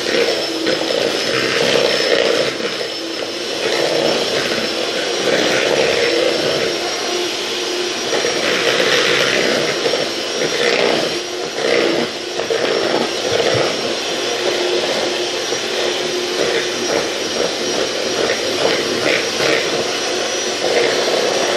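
Electric hand mixer running continuously, its beaters whirring through cake batter in a plastic jug: a loud, steady motor whine with a high tone.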